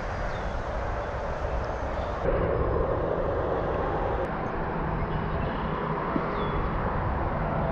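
Steady outdoor background rumble and hiss, with no voice, that shifts abruptly to a louder, fuller noise a little over two seconds in.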